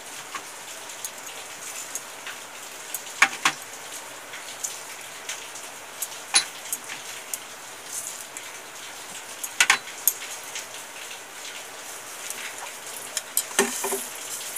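Whole spices, cumin and coriander seeds among them, pouring into a hot, dry metal pan for dry roasting: a steady pattering hiss like light rain, with a few sharp clicks as harder pieces land.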